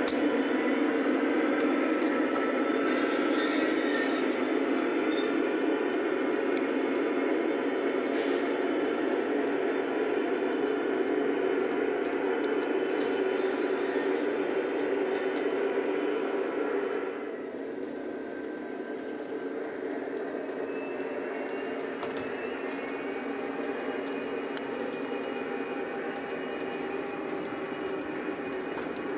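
Three-rail O gauge model train, two BNSF diesel locomotives pulling intermodal cars, running steadily: a hum of locomotive engine sound mixed with wheels rolling on the rails. It gets quieter about 17 seconds in.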